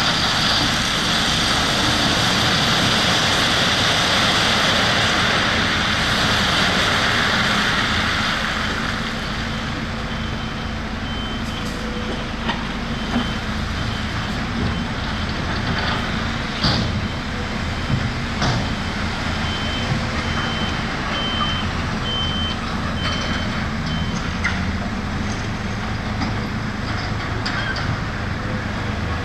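Heavy diesel machinery working: an engine running, loud and rushing for the first several seconds, then settling as a reversing alarm beeps steadily for about fourteen seconds, with a few knocks and clanks along the way.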